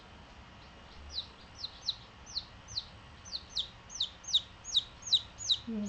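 Baby chick peeping: a quick run of short, high peeps, each sliding down in pitch, about three a second, starting about a second in and growing louder toward the end.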